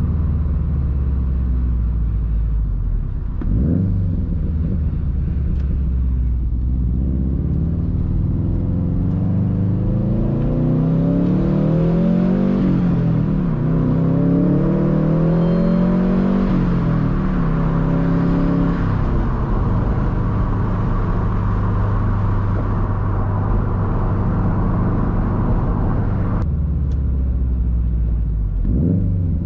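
2013 Subaru STI's turbocharged 2.5-litre flat-four boxer running through a loud Tomei Expreme Ti titanium exhaust. The car accelerates hard, its pitch climbing through the gears in several rising sweeps, each broken by a drop at the shift, then settles back to a steady cruise. A short rev comes near the end.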